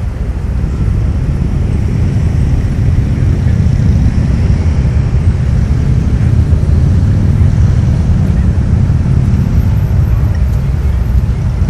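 Motorcade vehicles driving past on the street: a loud, steady low rumble with no clear engine note, growing a little louder about two seconds in.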